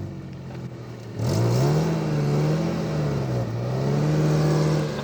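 Off-road 4x4's engine, low at first, then brought up on the throttle about a second in, its revs rising and falling as the driver works it over the obstacle.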